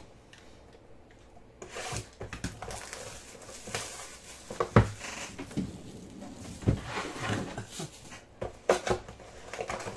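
A cardboard trading-card hobby box being opened and handled: rustling and scraping of cardboard and packaging with several sharp knocks, the loudest about five seconds in.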